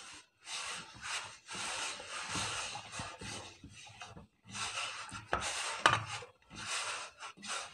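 Hands kneading cumin biscuit dough on a flour-dusted stainless steel plate: repeated rubbing and scraping strokes of dough and fingers against the metal, about one every half second to second, with a couple of sharper knocks a little past the middle.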